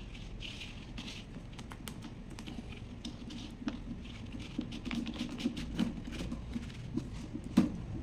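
Small plastic clicks and scraping as the centre of a Lasko fan's front grille is twisted by hand, growing busier in the second half, with one sharper click near the end.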